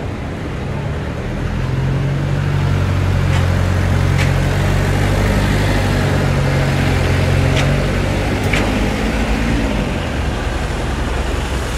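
A motor vehicle's engine runs close by as a steady low hum, loudest from about a second in until about eight seconds, then fades into general street traffic noise. A few sharp clicks stand out now and then.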